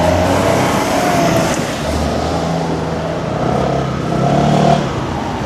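Road traffic at a railway level crossing: car engines running and pulling away, louder about four to five seconds in.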